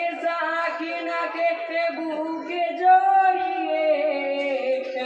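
Men's voices singing a Bengali marsiya, a lament for Husain, in a slow melody with long held notes.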